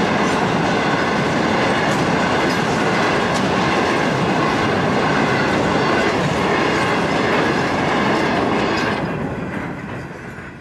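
Freight train wagons rolling past: a steady rumble of wheels on rail with a clatter of wheel clicks over the track joints, fading away near the end as the last wagon goes by.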